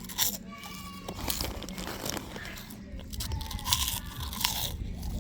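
Crunchy crisps being bitten and chewed, in irregular sharp crunches.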